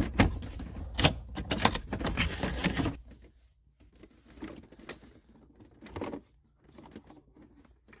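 Quick run of plastic clicks and rattles as a Saab 9-3 ignition switch module is unclipped and worked out of the centre console by hand, busiest for about three seconds, then a few scattered clicks.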